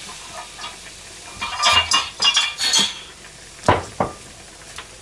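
A utensil clattering and scraping against a small frying pan as small fish are turned in it, with a ringing metallic edge, followed about a second later by two sharp knocks a few tenths of a second apart.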